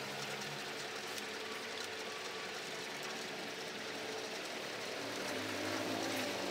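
An engine running steadily in the background, a little louder near the end.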